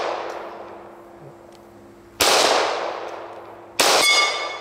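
Two pistol shots from a Glock 24 in .40 S&W, about a second and a half apart, each trailing off in a long echo. After the second shot a steel disc target rings with a clear metallic tone for about a second, the sign of a hit.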